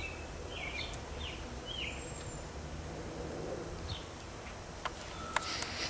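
Small birds chirping several times over a steady low background hum, with two sharp clicks near the end.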